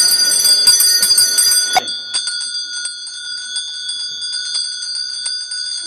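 Handbell rung rapidly and without pause, a steady high ringing with quick strikes. A louder layer of ringing drops out about two seconds in, leaving quieter ringing.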